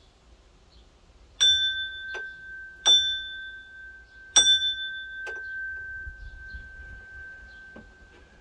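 Small hanging metal bell struck three times about a second and a half apart, each strike ringing out in one clear high tone that fades slowly, with a few lighter clinks between the strikes.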